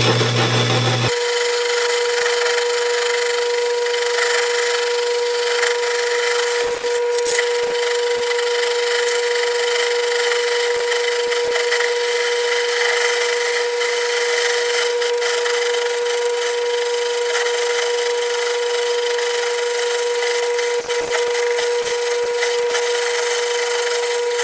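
1937 South Bend metal lathe turning a 2-inch aluminum bar, played back sped up. From about a second in it gives a steady high-pitched hum with a hiss of cutting over it, briefly dipping twice.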